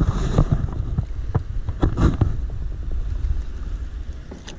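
Water sloshing and splashing irregularly as a landing net is lowered into the lake to release a fish, with a few sharp splashes and knocks, over a low rumble of wind on the microphone.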